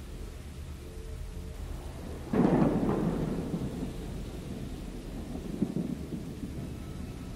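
Thunderstorm: a steady low rumble of rain and storm, with a sudden thunderclap about two seconds in that rolls away over a second or so, and a smaller rumble of thunder near the end.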